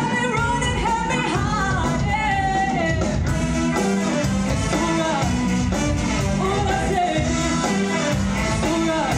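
High school jazz band playing live with a steady beat: a woman singing at the microphone over saxophones, trumpets, keyboard, guitar and drum kit.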